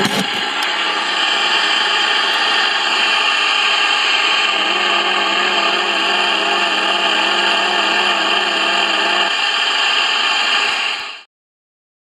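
Tecsun PL-310ET radio giving out loud static and electrical interference: a dense hiss with a steady hum and wavering, warbling tones, the radio being used as a detector of electromagnetic interference ('dirty electricity'). A few sharp clicks at the start as a plate is set on the glass shelf, and the noise cuts off suddenly about a second before the end.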